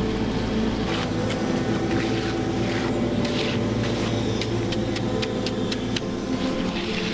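Construction machine's engine running steadily during a concrete pour, with scattered sharp knocks and short scrapes from tools and material; a quick run of clicks comes about two thirds of the way through.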